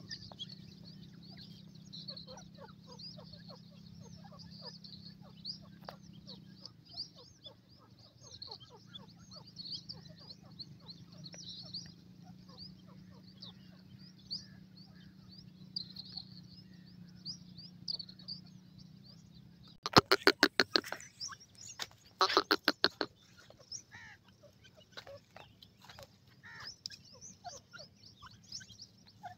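Grey francolin chicks peeping steadily in a high chirping chatter over a low steady hum. About two-thirds of the way in come two short, loud bursts of rapid ticks, a second or so apart.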